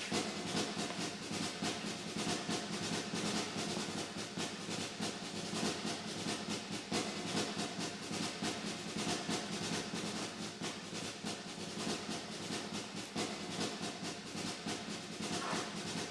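Percussive background music: a fast, continuous patter of drum strokes like a drum roll, over some held tones.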